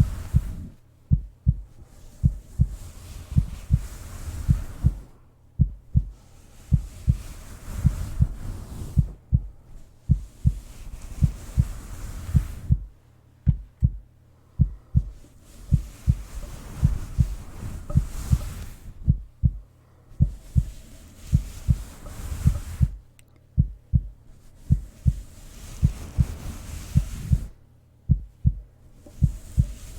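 Heartbeat: a steady run of low double thumps, with a soft rushing hiss that swells and fades every few seconds.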